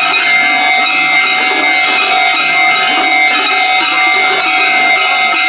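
Japanese railway level-crossing warning bell ringing continuously in a fast, evenly repeating clang.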